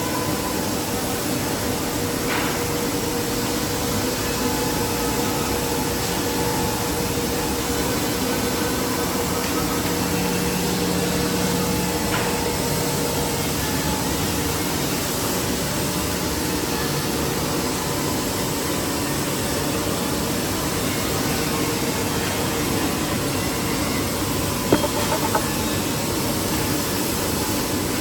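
Heavy-duty 5-axis CNC router (Woodmaster Pro-Master-T4) running, a steady mechanical hum and hiss with a faint steady tone that fades out about halfway. A few sharp ticks come near the end.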